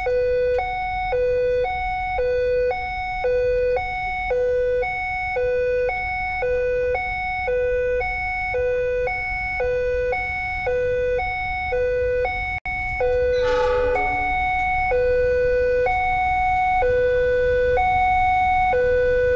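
Level-crossing warning alarm sounding as a two-tone electronic signal, a lower and a higher tone alternating evenly, the sign that the crossing is closed for an approaching train. About two-thirds through there is a brief cut-out and a short sliding tone, after which the two tones alternate more slowly.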